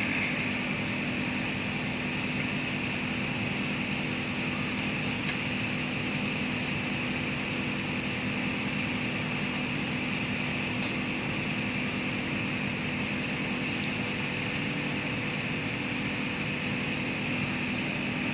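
An engine running steadily at a constant speed, with a single short click about eleven seconds in.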